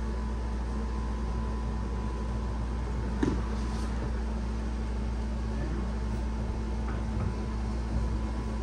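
A steady mechanical hum with a constant low drone, with a single short knock about three seconds in.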